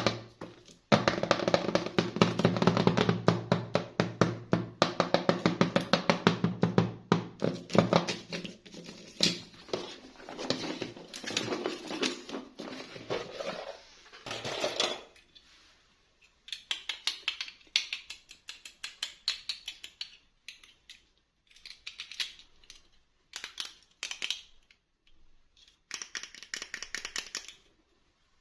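Background music with a steady beat, which stops about halfway. Short bursts of crinkling and clicking follow, from small plastic packaging being handled and opened.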